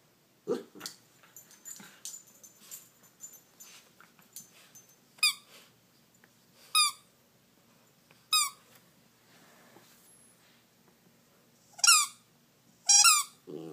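A small dog playing with a plush squeaky toy: a string of short, high squeaks that fall in pitch, irregularly spaced and some in quick pairs, after a few seconds of soft chewing and scuffling clicks.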